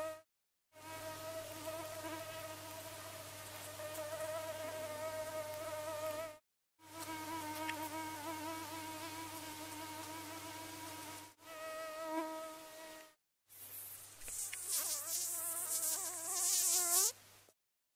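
Mosquito whining in flight: a steady high buzz with several overtones and a low hum beneath, broken into four stretches by short gaps. In the last stretch the pitch wavers and rises with a hiss over it, then cuts off.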